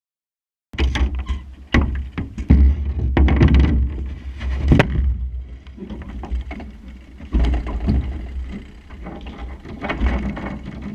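Wind buffeting the microphone of a Supernova sailing dinghy under way in a strong breeze, with water rushing along the hull and irregular knocks from the boat. The sound cuts in suddenly under a second in.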